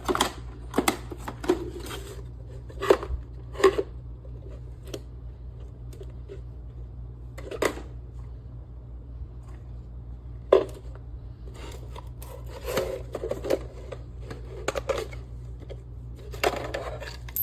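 Irregular hard clicks and knocks, single and in short clusters, over a steady low hum.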